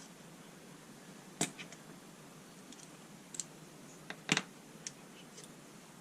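A few sharp, light clicks and taps of a screwdriver and small screws being handled on a workbench, the loudest about four seconds in.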